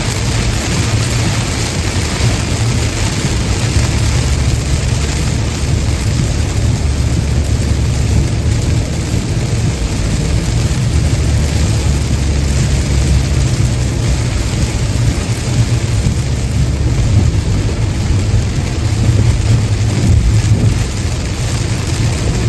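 Car driving on a wet highway in rain: a steady low road rumble with the hiss of rain and tyre spray.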